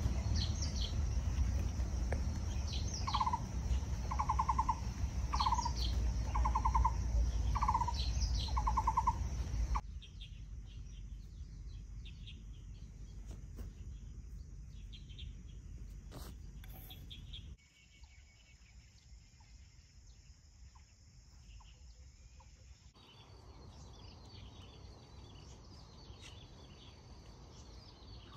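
Birds calling in farmland: one bird repeats a short trilled call about six times, about a second apart, with higher falling whistles over a low rumble. After about ten seconds the sound drops to quieter ambience with fainter bird calls.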